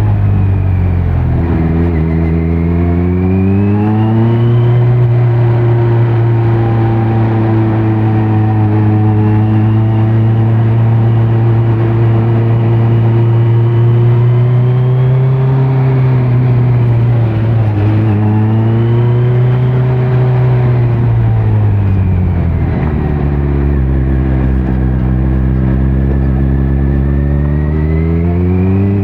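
2018 Kawasaki Z900's inline-four running through a Leo Vince muffler with no dB killer, ridden on the road. The engine rises in pitch over the first few seconds, holds a steady note, dips and climbs again, then drops away about two-thirds of the way in before building once more near the end.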